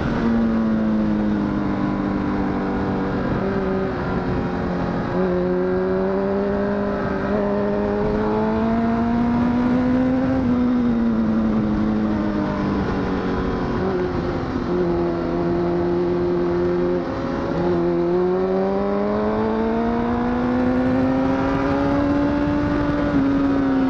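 Honda CBR1000RR SC57's inline-four engine under way, heard from the rider's seat, its note rising and falling with the throttle and jumping abruptly a few times at gear changes, over steady wind rush.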